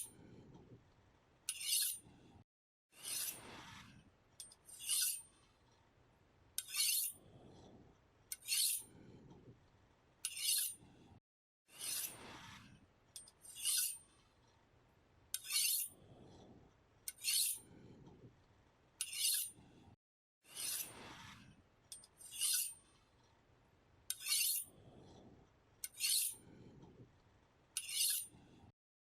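Knife blade being sharpened with repeated short scraping strokes of steel against a sharpener, about one stroke every one and a half to two seconds.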